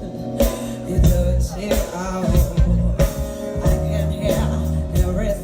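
Live neo-soul band playing: drum kit, bass and keyboards with a woman singing over them.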